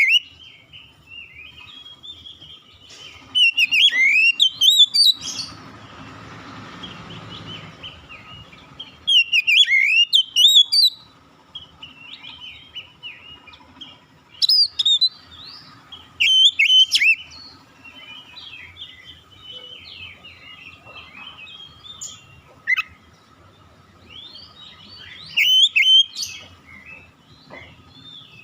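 Oriental magpie-robin (kacer) singing: loud bursts of rich, gliding whistled phrases every few seconds, with quieter twittering between them. A soft hiss runs for a few seconds after the first burst.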